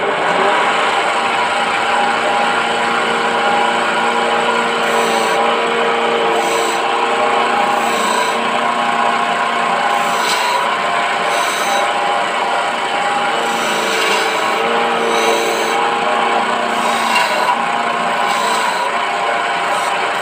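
Electric wood lathe running with a hand-held turning chisel cutting into a spinning teak blank: a steady scraping hiss of shaving over the motor's hum. From about five seconds in come short, brighter scrapes every second or two as the chisel is pressed in to cut grooves.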